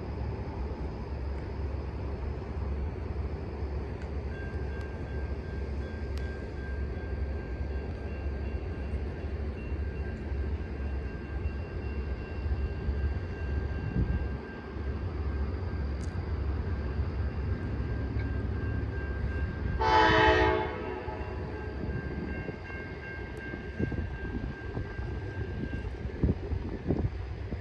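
Amtrak P42DC diesel locomotive running steadily in the distance with a low rumble, then one short horn blast about two-thirds of the way through.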